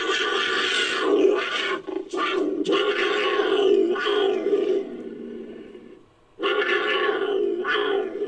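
Designed dinosaur vocalization for a Masiakasaurus: a long roaring call broken by two short breaks that fades out, then after a short pause a second roaring call.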